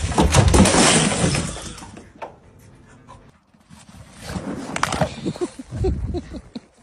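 A large LEGO model crashing down and its pieces clattering and scattering for about two seconds. After a short gap, dogs panting and making short excited sounds.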